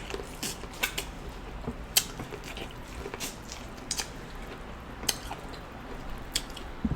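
Messy eating of a sauce-covered seafood boil: scattered sharp wet clicks and smacks of chewing and of handling food, spread irregularly throughout.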